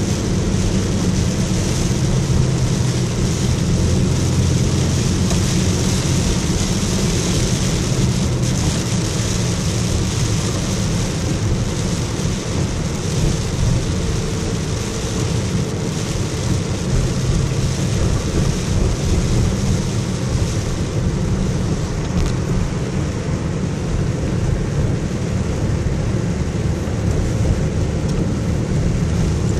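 Steady engine and road noise inside a vehicle's cabin while driving in heavy rain, a low rumble under the hiss of rain and tyres on wet pavement.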